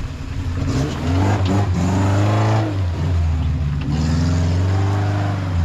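A car engine running with a steady low drone, revving up and back down twice.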